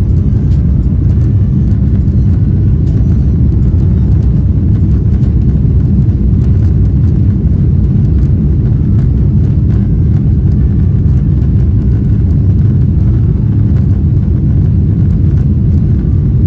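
Airliner cabin noise: a loud, steady low rumble of jet engines and airflow, with no change in pitch.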